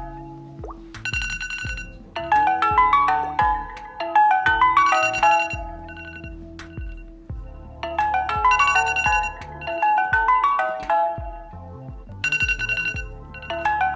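Tablet ringtone playing: a melodic electronic tune of quick runs of bell-like notes over a bass line, repeating in phrases about every two seconds.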